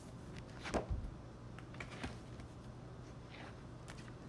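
Hair-styling tools being handled at a mannequin head: a few faint scattered clicks and taps, the loudest about a second in, over a low steady hum.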